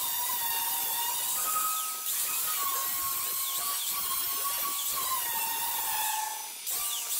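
Corded angle grinder grinding on steel plate: a steady high whine over a grinding hiss, its pitch sagging and recovering as the disc bites into the metal. It eases off briefly about six and a half seconds in, then picks back up.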